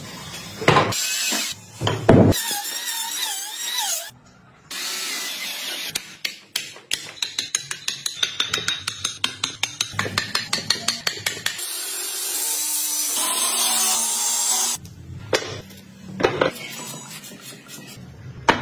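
Woodworking hand- and power-tool sounds in quick succession: a few sharp knocks on wood, then a fast even run of taps, several a second, as a chisel works out a mortise, then a steady power-tool whir, then more knocks.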